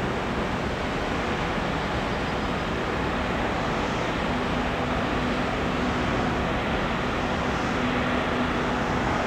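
Large cruise ferry passing close by: a steady rush of noise with a low, even engine hum running through it, slowly growing louder.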